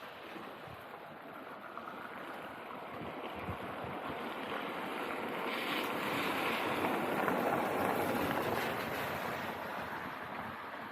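A vehicle passing on a wet road, its tyres hissing through the water: the sound swells for about seven seconds, then fades.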